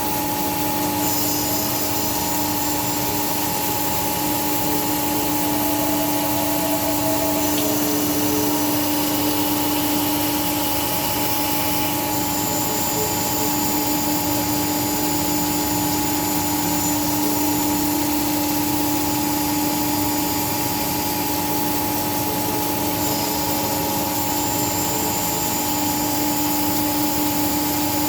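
CNC cylindrical grinding machine running: a steady hum with a broad hiss, and a thin high whine that shifts a few times.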